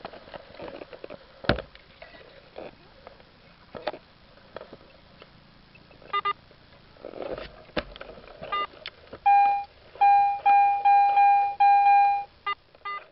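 Metal detector sounding its target tone: a run of about six loud, steady beeps over some three seconds, with a few short chirps before and after. Scattered clicks and knocks of digging and handling come in between.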